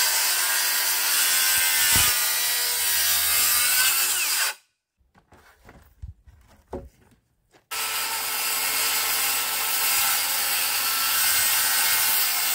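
DeWalt electric chainsaw cutting through a thick wooden board: a steady motor whine with the chain running through the wood for about four and a half seconds, then stopping. After a pause with a few light knocks, a second cut starts about three seconds later.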